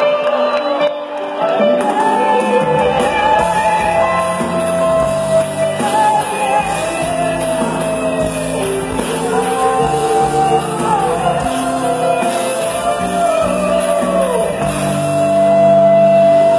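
Live pop-rock band playing with singing over it, recorded in a large concert hall. Bass and drums fill in about three seconds in, and a long held sung note near the end is the loudest part.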